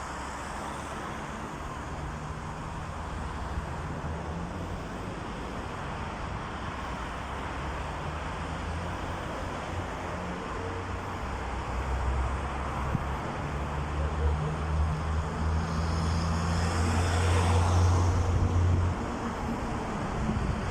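A motor engine running with a steady low hum, over a background of outdoor noise; the engine grows louder partway through and eases off near the end.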